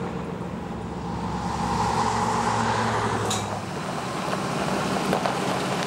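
Road traffic: a motor vehicle's tyre and engine noise swells to a peak about two seconds in and then eases off, over a steady low engine hum.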